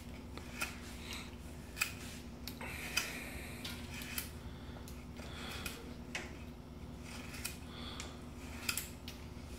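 Mora 511 knife carving a wooden block in a chest-lever grip, taking off shavings in short, irregular slicing strokes heard as brief scrapes and clicks. A steady low hum runs underneath.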